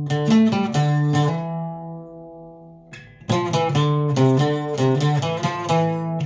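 Twelve-string acoustic guitar picking a sierreño-style requinto lead line: a short phrase of plucked notes, one note left ringing and fading for about two seconds, then a quick run of single notes.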